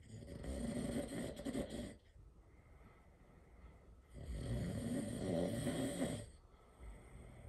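A sleeping person snoring loudly: two long snores, each about two seconds, about four seconds apart, with a fainter one near the end.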